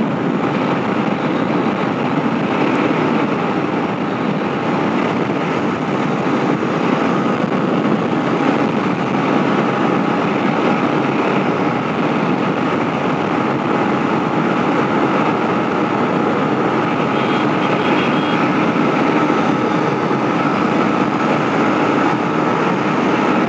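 Yamaha MT-15's 155 cc single-cylinder engine running steadily at highway cruising speed, about 120 km/h, mixed with the rush of wind over the microphone: an even, unbroken drone.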